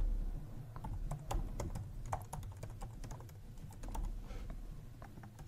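Typing on a computer keyboard: a run of quick, uneven keystroke clicks with brief pauses between bursts.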